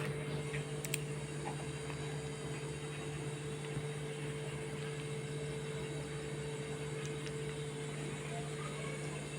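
Steady low electrical hum of a running household appliance, with a faint click about a second in.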